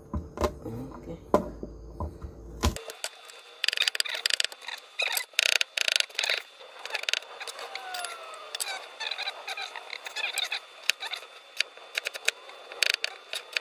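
A cleaver chopping garlic on a plastic cutting board. A few separate knocks, then quick runs of rapid chops.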